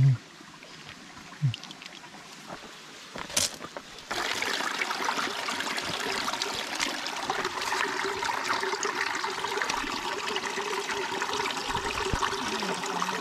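Shallow stream water trickling and running over rocks. The water is faint at first, with a brief knock about three seconds in, then it jumps suddenly louder about four seconds in and stays steady.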